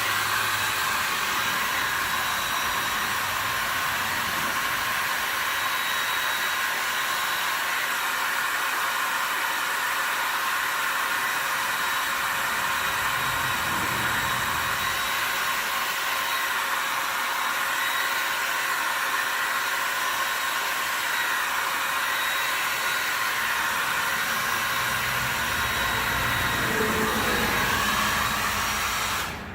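Handheld electric hot-air blower running steadily, warming a freshly applied vinyl decal to drive off the water underneath and help it stick. It starts abruptly and switches off near the end.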